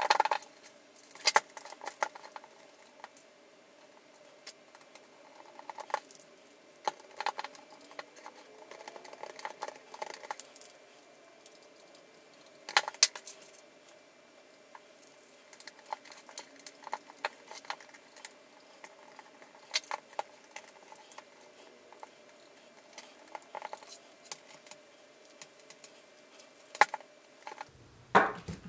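Small hard plastic and metal kit parts clicking and clinking as they are handled and fitted together by hand, in irregular clusters of light taps with a few sharper knocks, over a faint steady hum.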